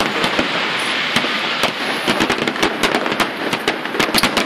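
Fireworks display: aerial shells and rising comets going off, with many sharp bangs and pops in quick succession over a steady hiss and a louder cluster of bangs near the end.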